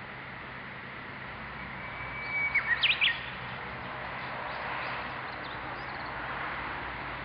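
Japanese bush warbler (uguisu) singing one phrase about two seconds in: a long steady whistle followed by a quick run of sharp up-and-down notes.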